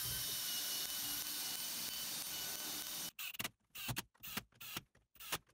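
Cordless impact driver driving wood screws into the fence board: one steady run of about three seconds, then a string of short bursts with silent gaps between them as the trigger is pulled again and again.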